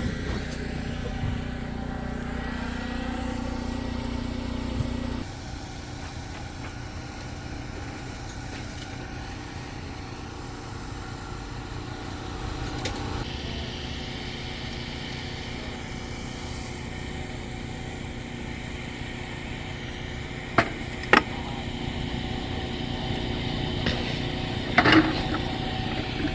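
An engine running steadily. A louder low part of the hum drops out about five seconds in. Two sharp knocks come about twenty seconds in, and a louder clatter near the end.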